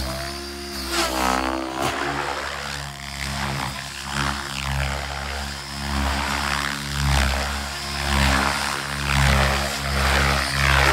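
Large RC helicopter flying 3D aerobatics: the steady drone of its main and tail rotors, swelling in repeated whooshes about every second or so as the blades load up through flips and tumbles.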